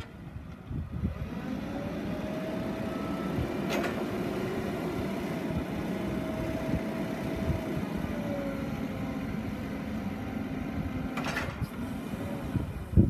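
Cat 2C5000 forklift running under load while its hydraulics raise the mast to full height: a steady engine drone with a held whining tone, and a sharp click about four seconds in and again near the end.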